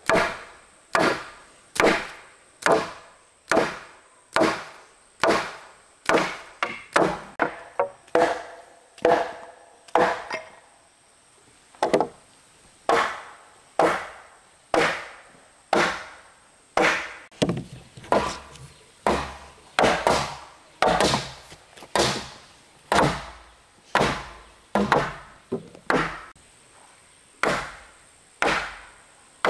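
Steady chopping into wood with a hand tool, about one stroke a second, with a quicker run of strokes and a short pause near the middle.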